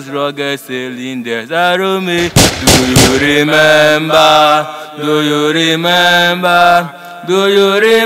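A voice chanting in long held, wavering notes, with a brief burst of sharp cracks about two and a half seconds in.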